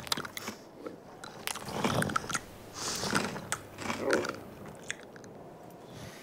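Cartoon chewing sound effect: an animated camel munching on a paintbrush held in its mouth, with crunching and smacking in bursts. It is loudest between about one and a half and four and a half seconds in, then dies away.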